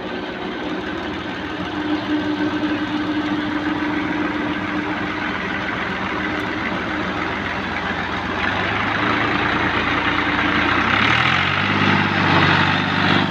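Fiat 480 Special tractor's three-cylinder diesel engine running under load as the tractor works through mud, with a second, deeper engine note joining about two thirds of the way in and growing a little louder.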